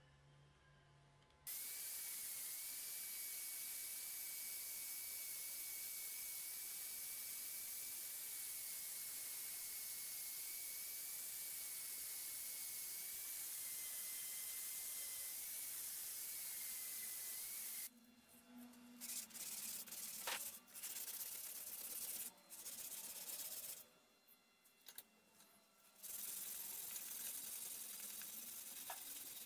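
A spinning abrasive disc on a rotary power tool sanding and polishing the steel head of a hammer: a steady hiss with a high motor whine that wavers slightly, starting about a second and a half in. After about eighteen seconds it breaks into short, irregular bursts of sanding with gaps between.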